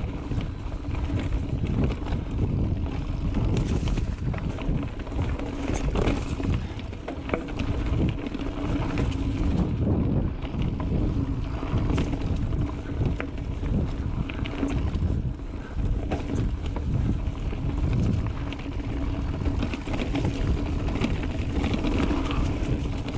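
Mountain bike ridden over a bumpy dirt trail: wind rushing over the microphone and tyres rumbling, with frequent short knocks and rattles from the bike over the bumps.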